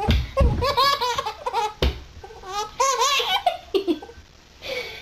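Baby laughing in repeated short bursts, pausing briefly near the end.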